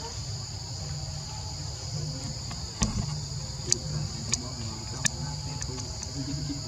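Steady high-pitched insect chorus over a low background rumble, with a few sharp clicks in the middle.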